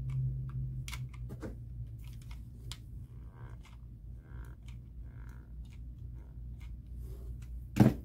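Handling noise from hot-gluing jute rope onto a planter: scattered light clicks and ticks from the mini glue gun and the rope being pressed down, with a few soft rustles, over a steady low hum. One much louder knock comes just before the end.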